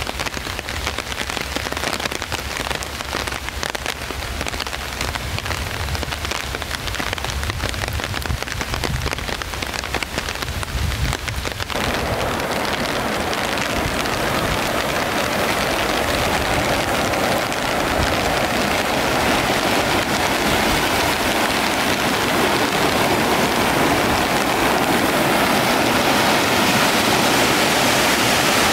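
A crackling patter over a low rumble for the first dozen seconds. Then, after a sudden change, the steady rush of a swollen, flood-high river, growing louder toward the end as the muddy water tumbles over a low weir.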